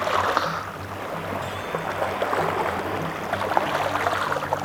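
Light rain and water at the shoreline: a steady splashing hiss scattered with small drips and clicks, over faint background music with a low, changing bass line.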